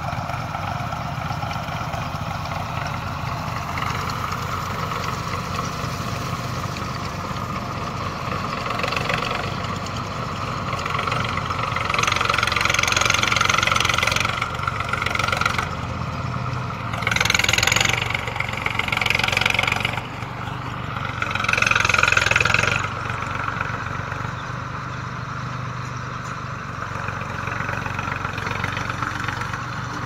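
Tractor's diesel engine running steadily as it pulls a wheel rake through loose paddy straw. Several louder surges of hissing noise come and go in the middle.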